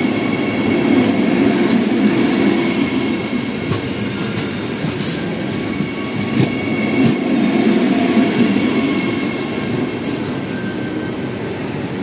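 Cheran Express passenger train running along the line: a steady rumble with irregular sharp clicks and a faint steady high tone.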